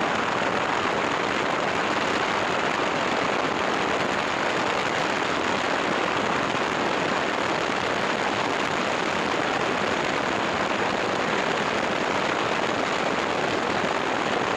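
Lava fountain erupting from a Kilauea fissure vent, giving off a steady, unbroken rushing noise.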